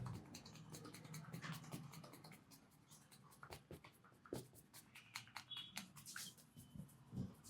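Faint scratching and irregular light clicks of a barber's fingers working through hair and over the scalp during a head massage.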